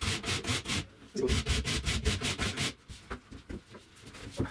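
A hand rasp scraped hard and fast back and forth over a stud wall, at about five strokes a second. The rasping pauses briefly, resumes, then stops a little past halfway and gives way to faint, scattered handling noises.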